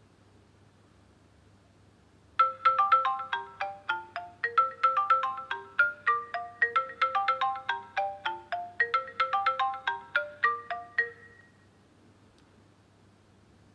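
iPhone ringtone playing a quick repeating melody of short notes: an incoming call, here from the converted rotary phone. It starts about two seconds in and stops after about nine seconds.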